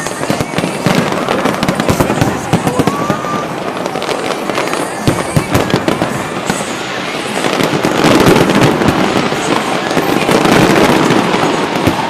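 Fireworks display: a dense, continuous run of bangs and crackling, growing louder about eight seconds in.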